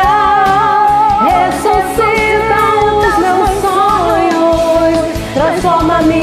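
Two women singing a Portuguese gospel song as a karaoke duet over a backing track, holding long notes with vibrato.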